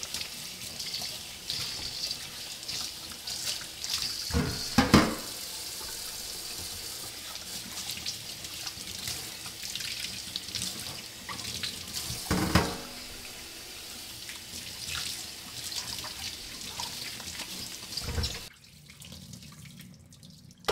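Kitchen faucet running over zucchini being rubbed clean under the stream into a stainless steel sink and metal colander, with a few knocks, the loudest about five seconds in. The water shuts off near the end.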